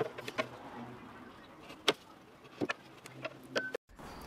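A few scattered sharp clicks and knocks over a faint steady low hum, cut off abruptly near the end.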